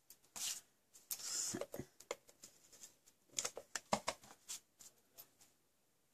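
Cardstock pieces being handled and slid against each other: two short rustling slides, then a scatter of light taps and scratches that die away near the end.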